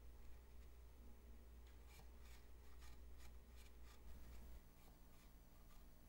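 Faint light ticks and rubbing of fingers handling a small clear acrylic case, over a low steady hum that drops off past the middle.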